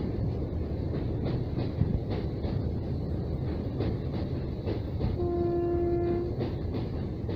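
ICF passenger coaches crossing a steel girder bridge: a steady rumble with wheels clacking over the rail joints. About five seconds in, a train horn sounds one steady blast lasting about a second.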